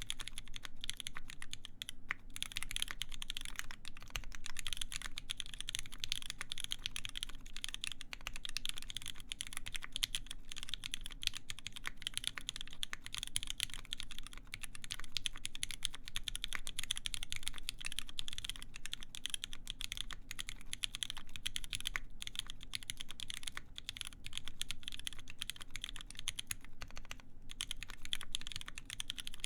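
Continuous fast typing on a mechanical keyboard with lubed vintage Cherry MX Black linear switches on a full brass plate, a dense stream of keystroke clacks with a few brief pauses.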